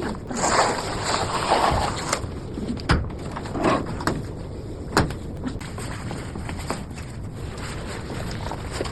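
Handling noise: a rustle from about half a second to two seconds in, then a few sharp clicks and knocks, over a steady background hiss.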